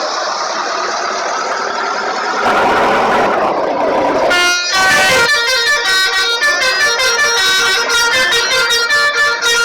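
Telolet multi-tone bus air horn (Basuri type) playing a quick melody of several notes at once that change every fraction of a second. Before the tune starts, about four and a half seconds in, there is a noisy rush.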